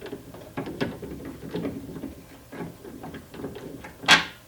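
Hand tool unscrewing the mounting screws of a door lock actuator inside a car door: a string of small irregular clicks and scrapes, with a louder knock about four seconds in.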